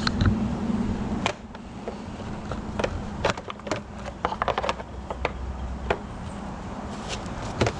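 Scattered light clicks and knocks of parts and tools being handled on a riding mower, at irregular intervals. A low steady hum stops about a second in.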